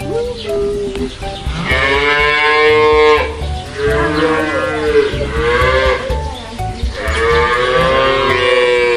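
Young cattle mooing: several long, fairly high-pitched calls one after another, each lasting one to two seconds with short breaks between them.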